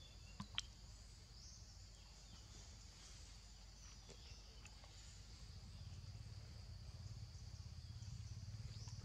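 Faint outdoor background: a steady high-pitched insect drone, with two small clicks about half a second in and a low rumble that grows louder in the second half.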